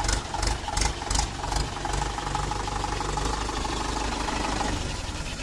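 Mahindra 415 DI tractor's diesel engine running at low speed, a steady clatter, with a run of sharp ticks in the first couple of seconds; the engine sound dies down near the end.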